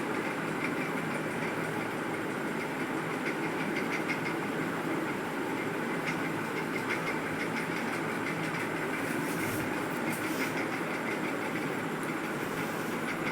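Steady mechanical running noise with faint small ticks now and then.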